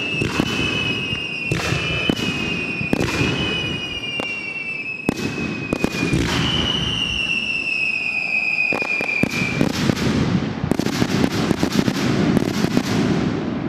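Aerial fireworks shells bursting with sharp bangs about every second, and high whistles that slide slowly down in pitch between them. From about ten seconds in, the bangs come thick and fast in a rapid volley.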